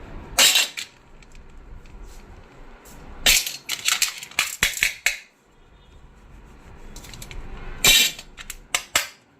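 Small metal sewing machine parts and tools clinking and clattering as they are handled and set down, in three bursts: one just after the start, a run of clinks in the middle, and a few more near the end.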